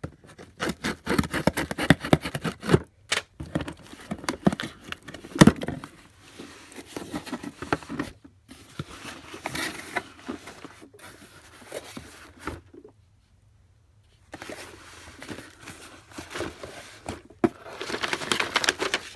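Cardboard shipping box being opened by hand, its packing tape ripped and flaps pulled back, then plastic air-pillow packing crinkling and rustling as it is handled. Irregular crackles and rustles with a sharp crack about five seconds in and a short pause about two thirds of the way through.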